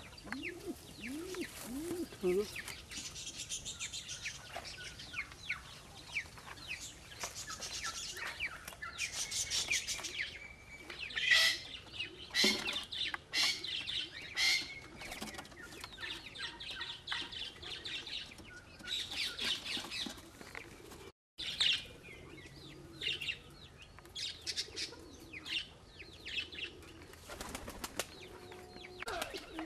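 Pigeons in and around a nest box: repeated short high chirps and squeaks, with wing flaps and a few low pigeon calls.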